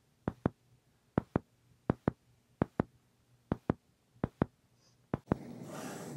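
Computer mouse clicking in quick double clicks, seven pairs about one pair a second, while music is being cued up. A faint steady hiss comes in near the end.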